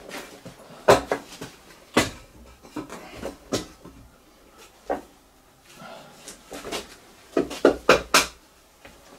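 Sharp metallic knocks and clinks of hand tools and parts being handled on an alloy engine block. They come singly about a second apart, then in a quick cluster near the end.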